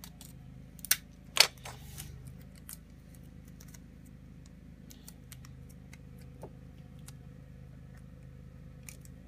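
Small handling noises from working with tape and a paper tail: two sharp clicks about a second in, then faint scattered ticks and rustles.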